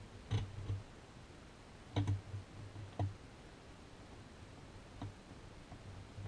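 Hand screwdriver driving an electrical outlet's mounting screw: a handful of sharp clicks and small knocks at irregular intervals.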